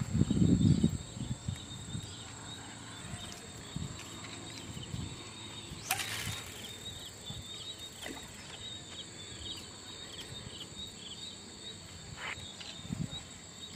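Crickets chirping steadily in a fast, even rhythm. About six seconds in there is one short rushing noise as the baited fishing line is thrown out over the water.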